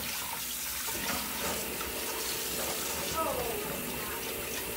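Kitchen faucet running steadily as a pot is rinsed out in the sink.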